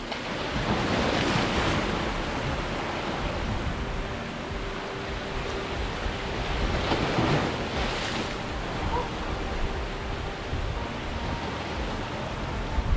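Sea surf surging and washing through a narrow rocky gully, swelling louder about a second in and again around seven seconds in.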